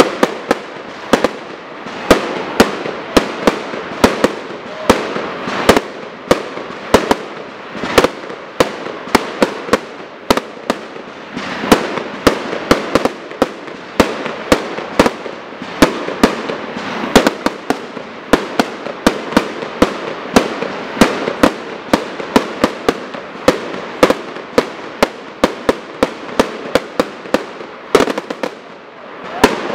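Aerial fireworks bursting in quick succession, about two to three sharp bangs a second, with crackling between the reports.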